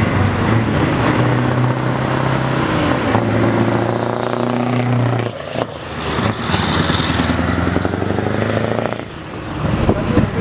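Scania heavy trucks' diesel engines pulling away under load with a deep, steady engine note; the note drops off abruptly about five seconds in, comes back, dips again near nine seconds, and builds up once more.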